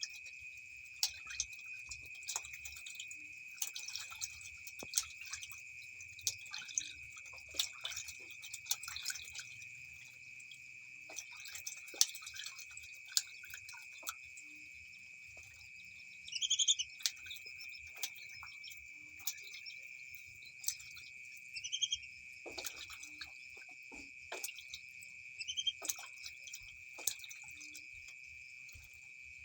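Water splashing and dripping in many short, irregular bursts as a whistling duck bathes. A steady high tone runs underneath, and a few short rising chirps come in the second half.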